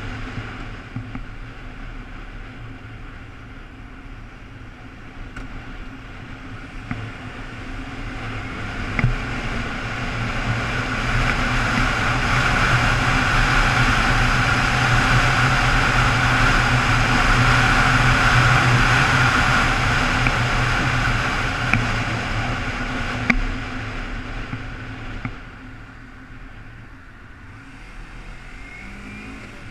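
Sport motorcycle riding on the road: a steady engine hum under heavy wind rush on the microphone, which swells as the bike speeds up through the middle and eases off near the end as it slows for traffic.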